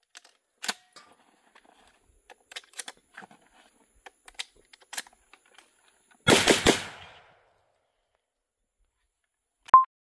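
Gunfire from a handheld firearm: scattered single shots, then a rapid string of about four shots a little after six seconds in, the loudest part, with a short echo. A short electronic beep sounds near the end.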